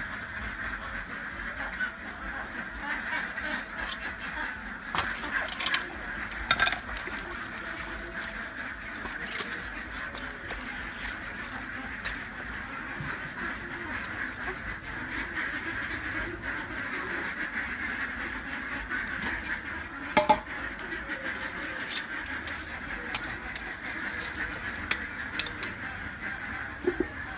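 Steady, continuous animal calling in the background, with sharp clicks and clatters of a knife and a metal pot being handled now and then, most clearly about two-thirds of the way in and near the end.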